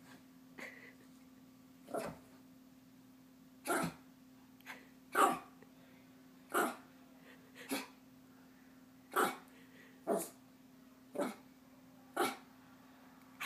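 Longhaired Chihuahua giving about ten short, sharp play barks, roughly one a second, in its excitement to get the other dog to play.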